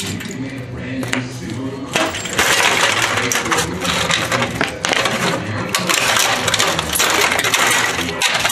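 Plastic and metal parts of a junked TV set cracking, snapping and clattering as it is wrenched apart by hand, a busy run of small sharp clicks and rattles.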